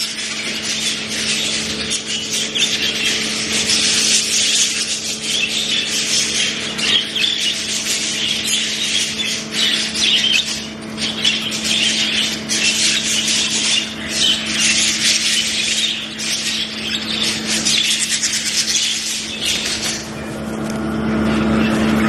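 A flock of budgerigars chattering and warbling continuously in dense, overlapping high chirps, over a steady low hum. Near the end the chatter thins and the hum grows louder.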